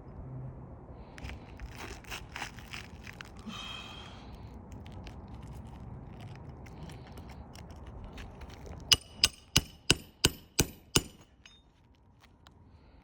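Hammer driving a nail into a roof shingle: seven quick, ringing strikes in about two seconds, near the end. Lighter knocks and handling sounds come earlier.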